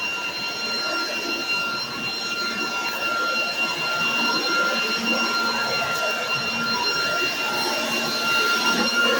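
Leaf blower running steadily at full speed, a rushing air noise with a high steady whine, blowing cottonwood fluff off a deck.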